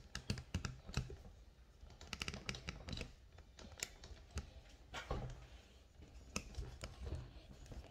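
Close-up handling noise: irregular light clicks and taps, with soft knocks, as things are moved about at close range.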